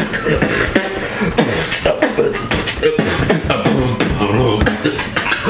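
Vocal music with a quick percussive beat playing, sharp hits coming every fraction of a second under a singing voice.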